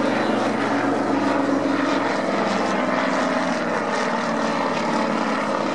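Avro Anson's two Armstrong Siddeley Cheetah 15 seven-cylinder radial engines and propellers droning steadily in flight.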